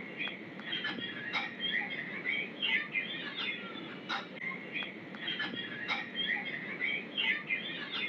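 Many small birds chirping continuously, with short sharp clicks every second or so.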